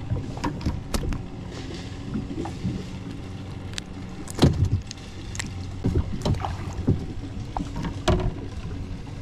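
Scattered small knocks, taps and clicks from handling a freshly caught bluegill and a spinning rod in a kayak, knocking against the hull, over a low steady hum. The loudest knock comes about four and a half seconds in.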